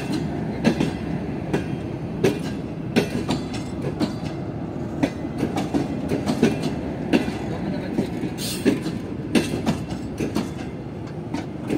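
Pakistan Railways passenger coaches rolling past, their wheels clicking irregularly over the rail joints over a steady rumble. A brief high hiss comes about two-thirds of the way through.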